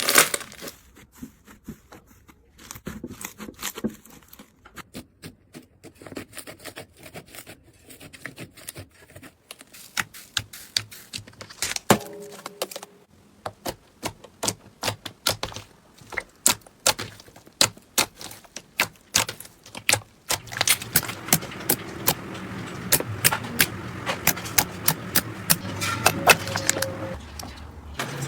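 Slime being squished and pressed by hand, giving many sharp clicks and crackles at an irregular pace. The clicks grow denser and fuller about twenty seconds in.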